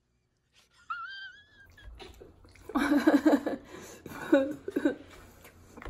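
Short wordless vocal sounds: a high, wavering cry about a second in, then bursts of voice around the middle and again shortly after four seconds.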